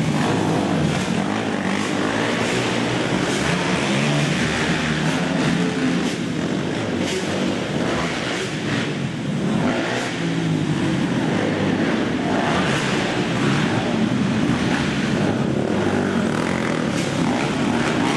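A pack of racing ATV engines running together, their pitch rising and falling as the riders work the throttles.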